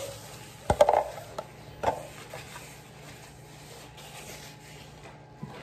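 Several sharp knocks and clinks as things are handled on a kitchen countertop, the loudest about a second in, then a faint steady hum.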